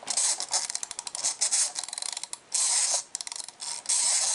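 Wind-up mechanism of a small plastic toy figure being wound at the back: rapid ratcheting clicks, broken by short stretches of a steady rasp about two and a half seconds in and again near the end.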